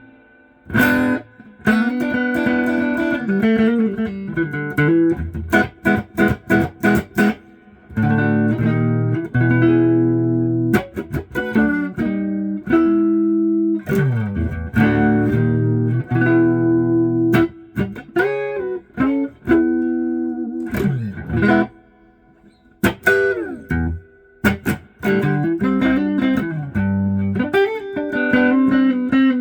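Electric guitar played through a valve reverb unit, an Orange UK Matamp reissue set at about 7, into a Fender Deluxe Reverb amp: picked notes and chords with reverb tails, and a few sliding notes. The pauses between phrases stay quiet, with no hum from the repaired unit.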